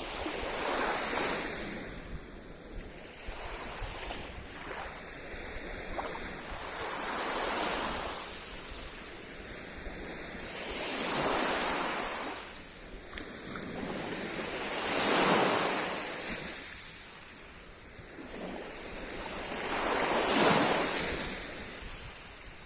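Sea surf: waves breaking and washing up one after another, each swelling and fading over a few seconds, roughly every four to five seconds. The two loudest break in the second half.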